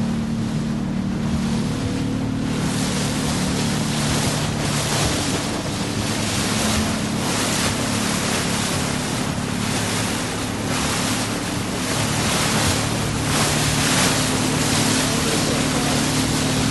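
Motorboat under way: its engine runs steadily beneath the rushing and splashing of sea water along the hull, the water noise rising and falling in quick repeated surges, with wind buffeting the microphone.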